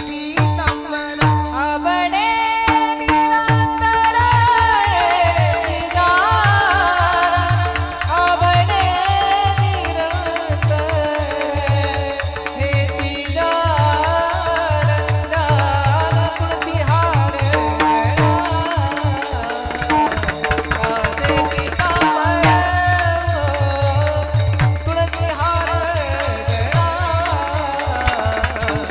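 Marathi devotional kirtan singing (a panchpadi): a solo voice sings an ornamented, gliding melody over a steady held drone, with quick, regular drum beats and jingling hand cymbals keeping the rhythm.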